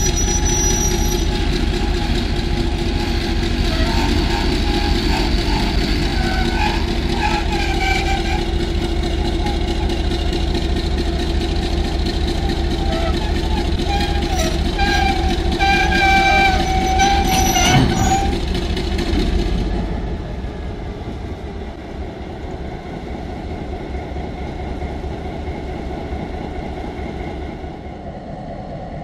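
Heritage mixed train hauled by a diesel locomotive running past: a loud, steady rumble of engine and wheels on the rails, with a few short high-pitched squeals in the middle. About two-thirds of the way through, the sound drops away to a quieter rumble as the train moves off.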